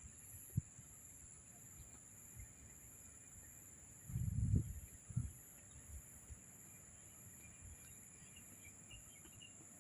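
Faint steady high-pitched insect drone, with a few faint bird chirps near the end. A low muffled bump about four seconds in is the loudest sound.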